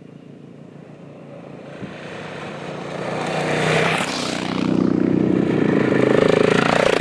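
Adventure motorcycle engine approaching, getting steadily louder and running loud in the last few seconds.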